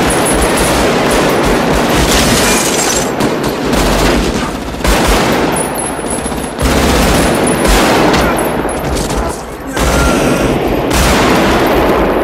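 Rapid, near-continuous bursts of fully automatic assault-rifle fire, with a few short lulls.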